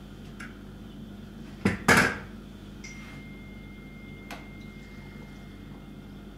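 Two sharp clunks close together about two seconds in as a blender jug full of smoothie is lifted off its motor base, with a short ring after them. Otherwise steady kitchen room tone with a few faint clicks.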